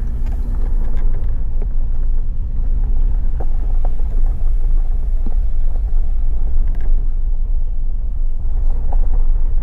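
Vehicle driving on a dirt back-country road: a steady low rumble of engine and tyres, with scattered light knocks and rattles.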